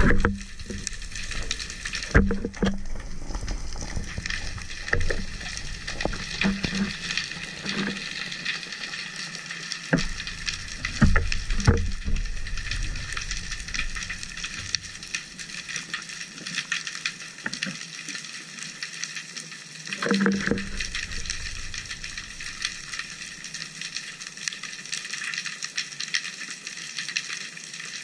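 Underwater ambience over a rocky reef: a steady crackling fizz of countless tiny clicks, heard through an action camera's waterproof housing, with scattered low knocks and bumps from the diver's movement.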